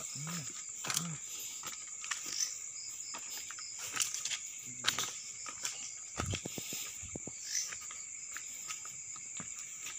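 Crickets and other night insects calling in a steady, high-pitched chorus. Scattered footsteps and handling knocks fall on top of it, and a voice makes two short sounds in the first second.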